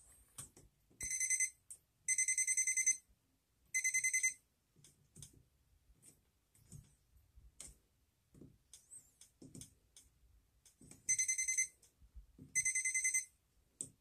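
Non-contact voltage detector pen beeping in rapid high-pitched bursts as its tip is held at the outlet's slots, signalling live voltage at the hot side. There are three bursts in the first four seconds and two more near the end, with faint handling clicks between.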